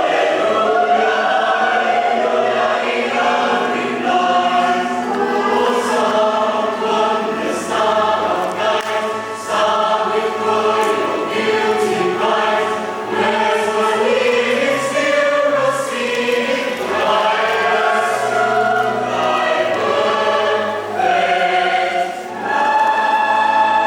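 A choir singing, several voices holding long notes in harmony.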